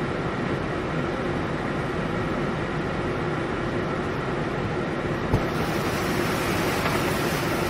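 Steady rushing noise of a torrential downpour and floodwater around a van, heard from inside the vehicle. A single sharp knock comes about five seconds in, and after it the hiss turns brighter.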